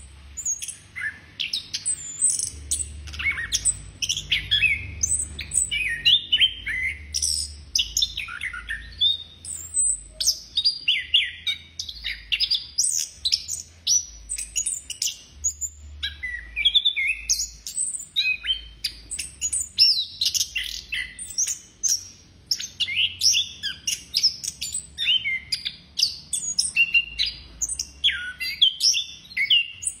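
Chestnut-capped thrush (anis kembang) singing continuously, pouring out rapid, varied phrases of whistles and chirps with only brief gaps.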